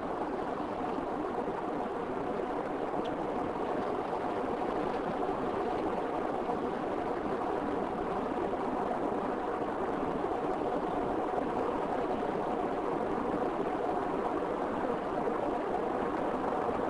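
Steady rushing road noise of a car driving at an even speed: tyres on tarmac and the engine running.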